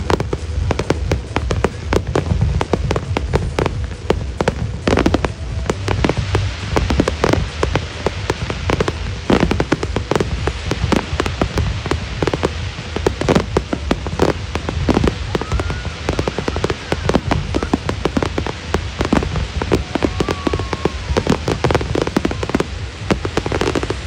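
Fireworks display: a rapid, dense run of bangs and crackling from bursting shells, over music with a heavy low end.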